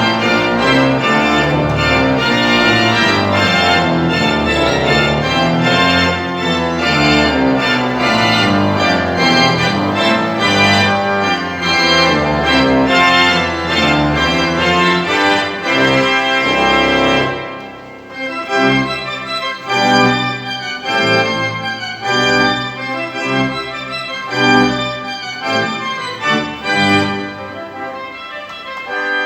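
Pipe organ playing a concert piece in full, sustained chords. About two-thirds of the way through, the sound drops away briefly and goes on a little quieter, in shorter, separate notes.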